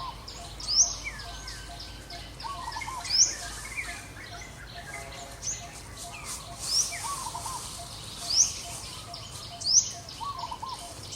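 Birds calling: a sharp, high, upward-sweeping chirp repeated every one and a half to two seconds, with a lower warbling phrase now and then.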